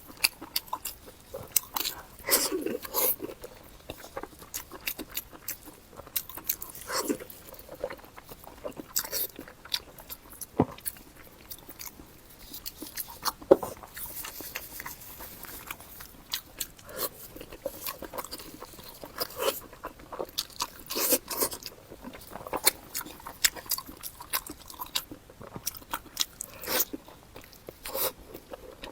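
Close-up eating sounds of a person biting and chewing pig face meat: irregular crunches and chewing clicks throughout.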